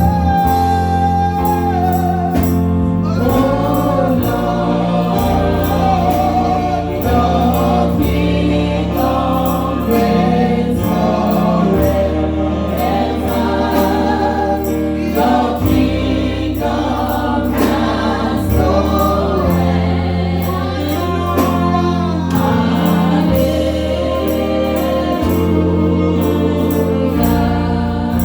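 Gospel praise music: a choir singing over a band with a steady bass line and a regular high beat.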